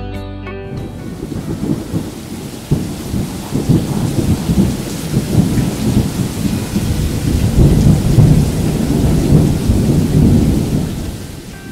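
Thunder rumbling and crackling over steady rain, building to its loudest about eight seconds in and easing off near the end.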